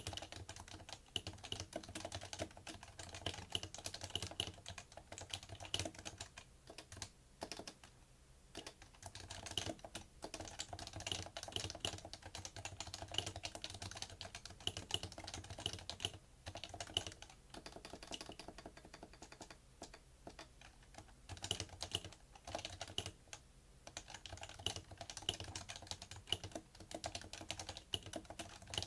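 Fast, continuous typing on a PFU Happy Hacking Keyboard Professional2 with Topre electrostatic capacitive switches, key after key, with a few brief pauses.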